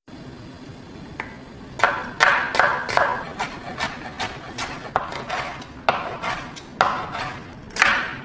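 Chef's knife cutting carrot and red bell pepper into strips on a bamboo cutting board: a steady run of sharp chops against the wood, a little over two a second, starting about two seconds in.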